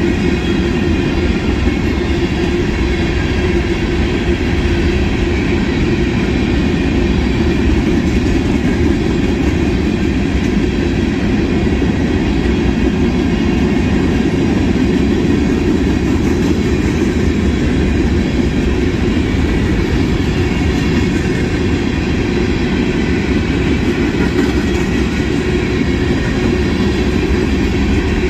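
Freight train of covered hopper cars rolling past at speed: steady, loud running noise of steel wheels on the rails.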